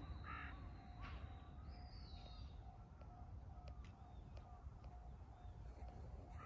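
A crow cawing once, a harsh call about half a second in, heard faintly over a steady low rumble.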